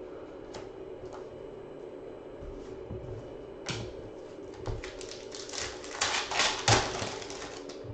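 Foil trading-card pack being torn open and crinkled in the hands: a dense run of crackling from a little past halfway, loudest near the end, over a steady background hum.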